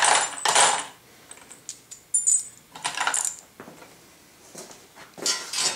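Metal bolts and nuts clinking and rattling against each other as they are grabbed by the handful, in several short bursts with a few bright metallic rings.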